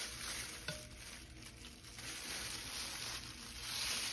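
Soft handling noise of plastic food-prep gloves rubbing over raw whole chicken on a metal baking tray, with one light click about two-thirds of a second in.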